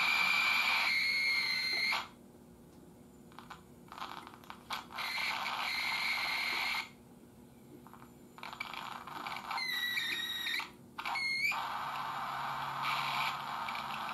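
Crosley 52 regenerative radio being tuned: a hiss of static that cuts in and out, with whistling squeals that slide in pitch near the start and again about ten seconds in. The whistles are typical of a regenerative set in oscillation beating against station carriers.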